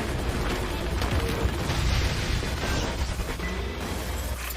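Action-scene soundtrack from an anime episode: music mixed with dense crashing impacts and heavy booms, thinning out just before the end.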